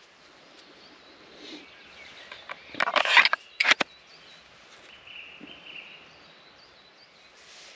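A bushcraft knife is pushed back into its moulded plastic sheath: a short scraping slide about three seconds in, then a sharp click as the blade locks home.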